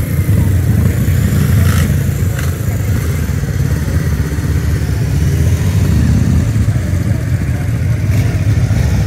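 Several classic motorcycle engines running at low revs as the bikes ride slowly past one after another, a steady low rumble with a few short blips of the throttle around the middle.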